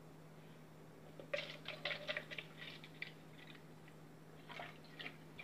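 Milk pouring from a carton into a plastic cup: faint, irregular splashing that starts about a second in and tails off after about three seconds, with a few faint ticks near the end.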